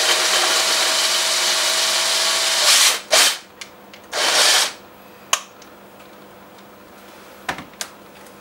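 Cordless drill spinning the shaft of a stainless-steel hand coffee grinder, grinding coffee beans with a steady whirring grind that stops about three seconds in. Two short bursts of the drill follow, then a few light clicks.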